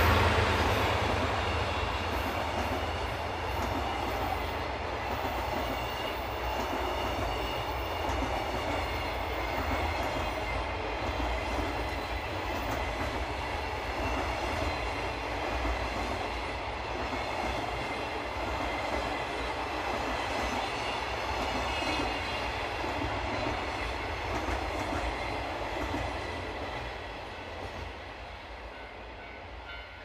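A long container freight train rolling past close by behind a DD51 diesel locomotive. The noise is loudest at the start as the locomotive goes by. The wagons' wheels then keep up a steady rolling clatter on the rails, which fades over the last few seconds as the train draws away.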